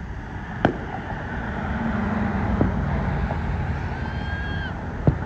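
Aerial fireworks going off at a distance: three sharp bangs a couple of seconds apart over a steady low rumble, with a high whistling tone near the end.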